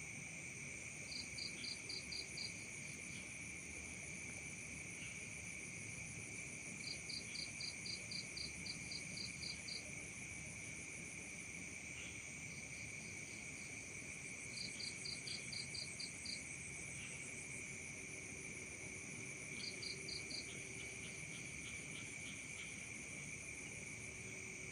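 Night chorus of crickets and other insects, a steady high buzzing. Over it a louder chirping call comes four times in short trains of about six to ten pulses, roughly four a second.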